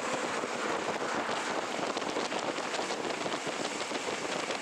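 Steady rushing noise of a Montreux Oberland Bernois (MOB) train running along the track, heard from inside the carriage, with faint ticks from the rails.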